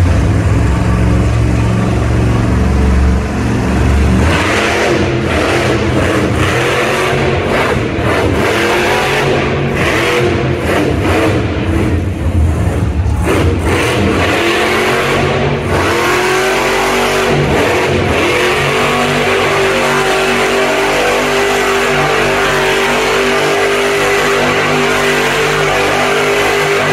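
Monster truck's supercharged V8 revving up and down in repeated surges as the truck spins donuts in the dirt, then holding a steady high note for the last several seconds.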